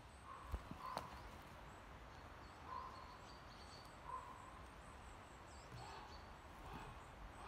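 Faint woodland birds calling: a few short calls at a middle pitch and thin, high calls scattered throughout. There are two sharp clicks in the first second or so.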